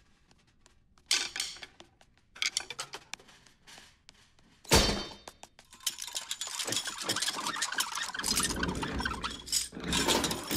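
Clinking, rattling and knocking of drum-kit hardware as the pieces are moved into place: short bursts of clatter, one sharp heavy knock about five seconds in, then almost continuous clatter through the second half.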